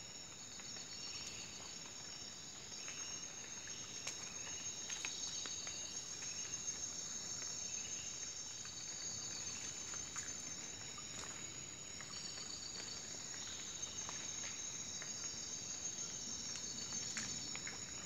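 Steady high-pitched chorus of insects trilling in several layered pitches, with a fast pulsing texture, over a light trickle of shallow water running across gravel and a few faint clicks.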